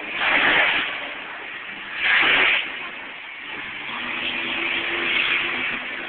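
Monster truck supercharged V8 engines revving in loud swells, one at the start and another about two seconds in, then running more steadily. The sound is thin and noisy, as heard from the stands on a low-quality camera microphone.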